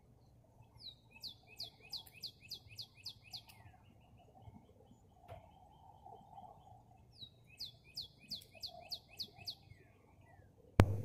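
A songbird singing twice, each song a quick run of about ten repeated down-slurred whistled notes. Near the end, one sharp, loud knock close to the phone.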